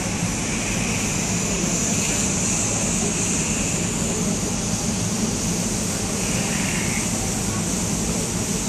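Steady roar of a large indoor arena's background noise, with a couple of faint, brief higher tones about two and six and a half seconds in.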